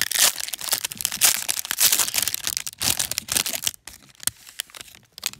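Wrapper of a Topps baseball card jumbo pack being torn open and crinkled by hand: dense crackling for nearly four seconds, then a few scattered crinkles.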